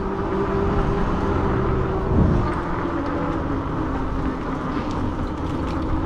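A motor vehicle with loud exhaust pipes running nearby, its engine note dropping in pitch about two seconds in after a brief louder surge, over steady road and wind noise.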